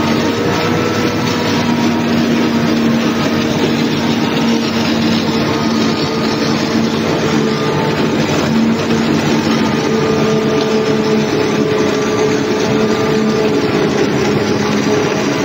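Forage harvester running while it cuts and chops standing maize: a steady, loud machine drone with a hum that holds its pitch throughout.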